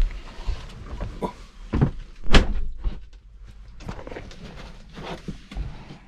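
Knocks and thuds of someone climbing into a Citroen Ami's small plastic cabin and shutting its door, the loudest thump a little after two seconds in.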